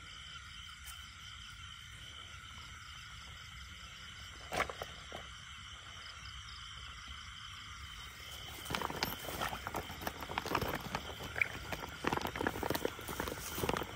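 Steady night chorus of frogs and insects over a flooded rice field, with one sharp knock about four and a half seconds in. From about eight and a half seconds a run of irregular close rustles and knocks joins it.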